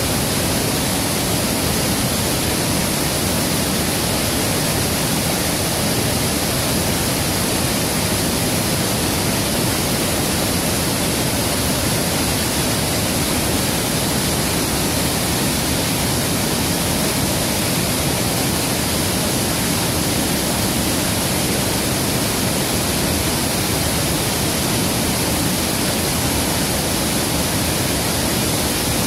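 Steady rushing of a river, one constant even noise with no breaks.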